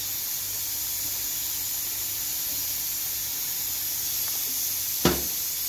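Grated tomato and garlic sauce frying in a pan, a steady sizzling hiss, with one sharp knock near the end.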